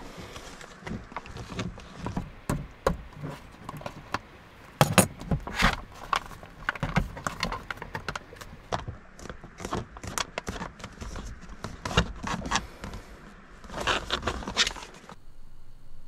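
Spoon stirring inside a foil freeze-dried meal pouch: the pouch crinkles and rustles with irregular scrapes and clicks. It stops abruptly about a second before the end.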